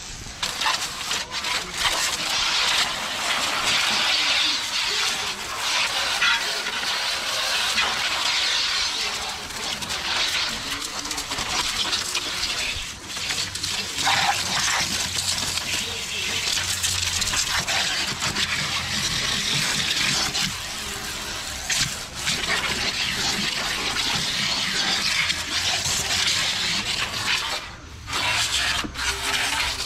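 Garden-hose-powered Turbo Jet spray wand blasting a jet of water onto a car's front end, a steady hissing spray with splashing. It breaks off briefly a few times.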